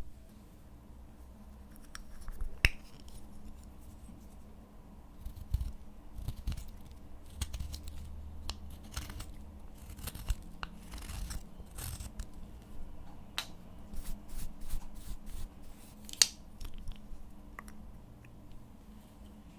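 Slime being mixed and kneaded by hand, with irregular sharp sticky clicks, small pops and short rasps.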